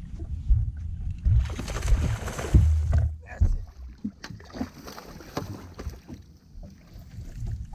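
Wind rumbling on the microphone aboard a bass boat, with scattered knocks and bumps on the deck. A louder rushing noise comes about one and a half seconds in and lasts a second or so.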